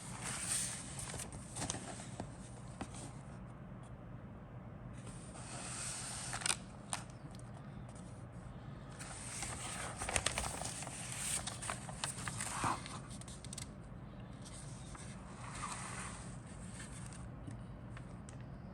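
Plastic model kit parts being handled in their bags: irregular crinkling and rustling of plastic with a few sharp clicks, over a steady low hum.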